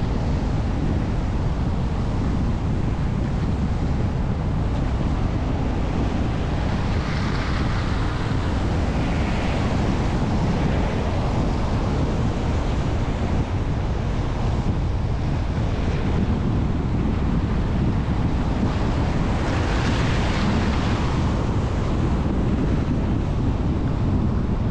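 Wind buffeting the microphone of a camera mounted outside a moving car, over a steady low rumble of tyres on a wet, slushy road. A few hissing swells rise and fade, the strongest about twenty seconds in.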